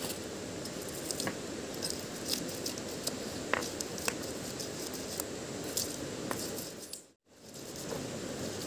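Green chilies and seasoning crushed and ground with a hand-held stone on a flat river rock: wet squishing and scraping with scattered small clicks of stone on stone, over a steady rush of flowing river water. The sound cuts out briefly about seven seconds in.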